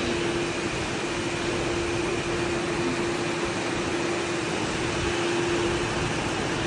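Steady rain falling, an even hiss, with a faint steady hum underneath that fades out near the end.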